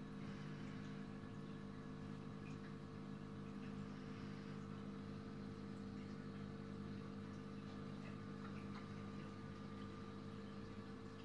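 Steady low hum of a reef aquarium's pumps, with water trickling and bubbling over it.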